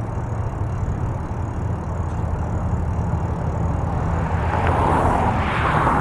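Steady low drone of a moving vehicle, with a rushing noise that swells from about four seconds in.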